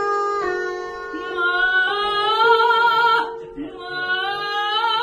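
Upright piano holding steady notes while a high voice sings a vocal exercise: one held note ends under a second in, then two sung phrases each rise in pitch with vibrato.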